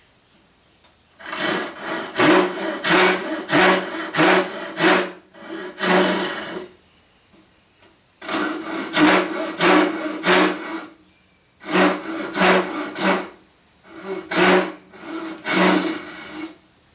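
Hishiki Japanese rip saw cutting dovetail pins by hand, a rasping stroke about twice a second. The sawing comes in four runs with short pauses between them.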